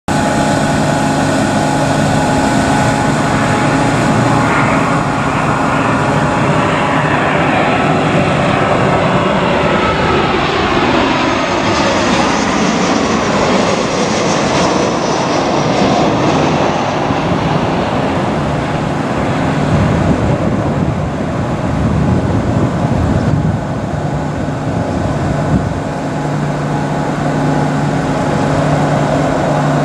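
Boeing 737-700 airliner on final approach, its two CFM56-7B turbofans running loud and steady as it passes low overhead. The engine whine falls in pitch as it goes by, about a third of the way in, and the rumble carries on as it heads away.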